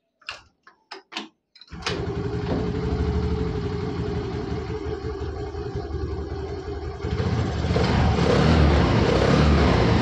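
Honda Aviator scooter's single-cylinder four-stroke engine kick-started: a few short knocks as the kick lever is worked, then the engine catches a little under two seconds in and runs steadily, getting louder from about seven seconds in. The kick starter and the freshly reassembled CVT side are working.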